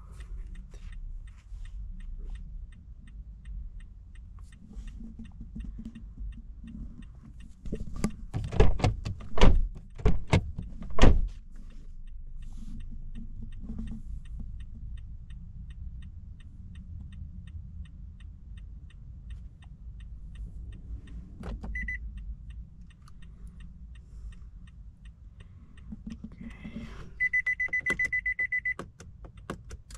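Car-cabin key-programming noises: a few loud knocks and bumps about 8 to 11 seconds in, one short high electronic beep about 22 seconds in, and near the end a rapid string of high beeps lasting about a second and a half while the smart key is held against the push-start button.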